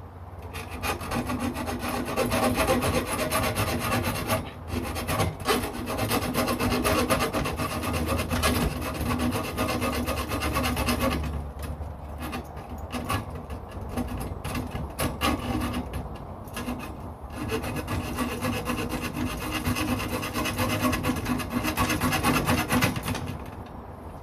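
Hacksaw cutting through the metal grill grate of a UCO Flatpack fire pit in steady back-and-forth strokes, with a few brief pauses.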